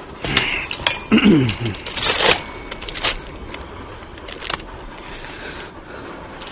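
A conductor's mechanical ticket machine being worked by hand to print and issue a bus ticket: a quick run of metallic clicks and clatter in the first three seconds, then quieter.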